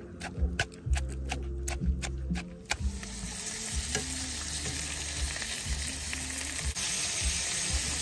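A wooden pestle pounds in a clay mortar with sharp strikes about two a second. About three seconds in it gives way to salmon fillets frying in a pan, a steady sizzle, as tongs turn them.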